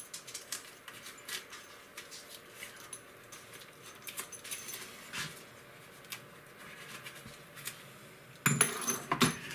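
Faint rustling and small clicks of a strip of adhesive tape being handled and wrapped around a cable by hand. About a second before the end comes a louder scratchy noise.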